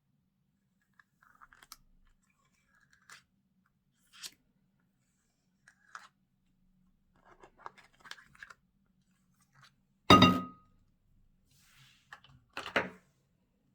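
Slime being mixed, giving scattered soft crackles and small pops, with a loud knock that rings briefly about ten seconds in and another loud crackle near the end.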